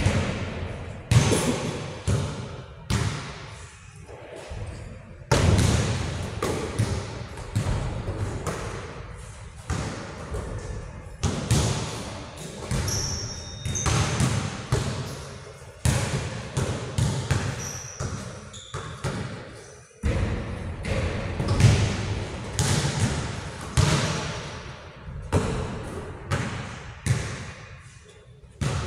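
A ball being struck and bouncing on a hard court in a large echoing gym, one sharp knock every second or two, with a couple of short high squeaks in between.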